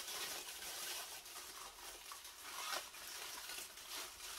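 Rustling and crinkling of white packing wrap as a statue is unwrapped and lifted out of it, a continuous run of small irregular crackles.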